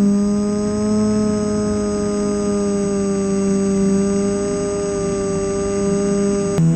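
Brushless electric motor and propeller of an RC plane running at steady throttle: a sustained pitched whine that sags slightly in pitch, then drops abruptly in pitch just at the end.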